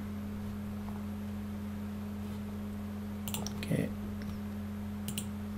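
Computer mouse clicking a few times, about three and a half and five seconds in, over a steady low electrical hum.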